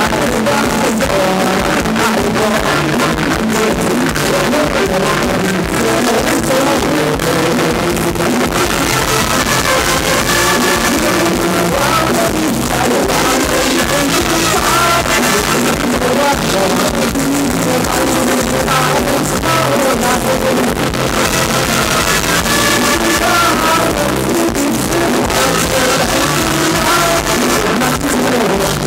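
Live band playing Thai ramwong dance music of the Phetchaburi style through a stage PA, with a steady beat and male singing.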